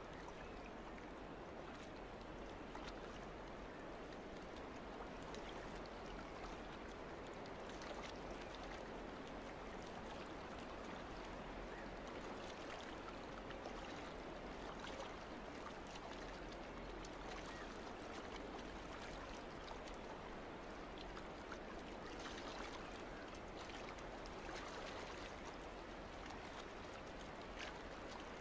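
Faint, steady rushing noise with small scattered clicks.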